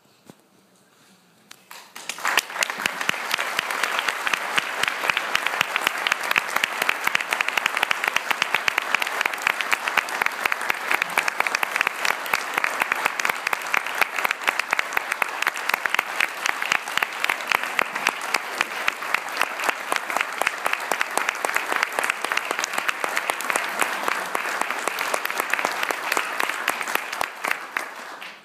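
Audience applauding. The clapping begins about two seconds in and stops just before the end.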